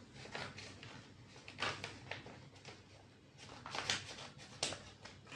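A sheet of paper handled and folded by hand: a few short rustles and crinkles over a low steady room hum.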